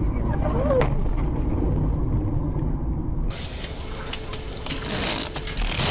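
Steady low road and engine rumble inside a moving car, picked up by a dashcam. About three seconds in it cuts abruptly to a car on a wet road, where an even hiss of rain and wet tyres takes over.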